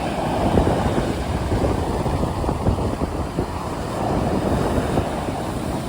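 Stormy sea: waves and surf washing with wind, a steady low rushing noise with small surges.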